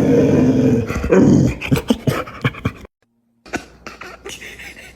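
A dog vocalizing in one drawn-out, pitched sound that ends about a second and a half in, followed by scattered clicks and knocks.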